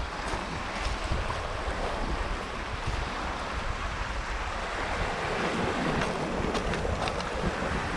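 Wind noise on the microphone over the steady wash of small Baltic Sea waves breaking on a pebbly shore.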